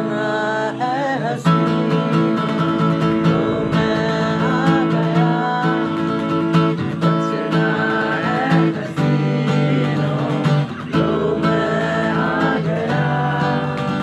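Acoustic guitar strummed in steady chords, with a voice carrying a wavering melody over it without clear words.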